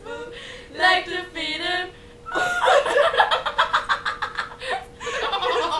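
Two young women laughing together: giggles, then a long run of quick, breathy bursts of laughter from about two seconds in.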